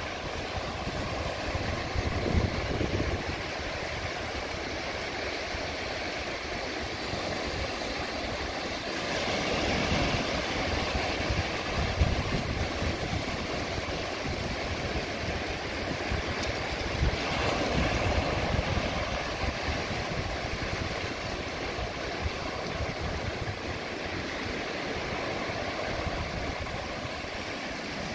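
Small surf on a sandy beach: waves breaking and washing up the shore, then drawing back, swelling louder twice along the way. A low, fluttering rumble of wind on the microphone runs underneath.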